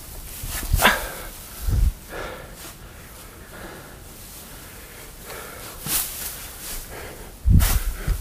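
A dog barking a few times, with dull low thumps in between.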